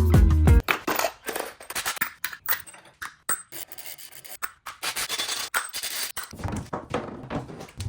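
Irregular clicks, taps and scrapes of metal parts and tools being handled at a workbench. Music cuts off about half a second in.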